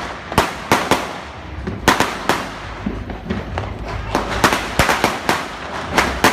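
Firecrackers and fireworks going off in the street: a string of sharp bangs at irregular intervals, roughly one or two a second, over a continuous crackle.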